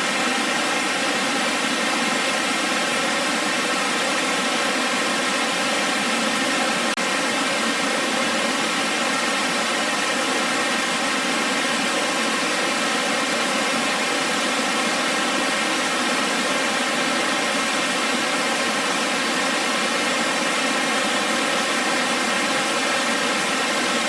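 Purakaunui Falls, a cascading three-tiered waterfall, giving a steady, even rush of falling water.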